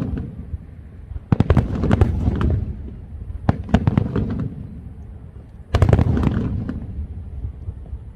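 Aerial fireworks going off in three volleys about two seconds apart, each a cluster of sharp bangs and crackles over a low rumble that fades out.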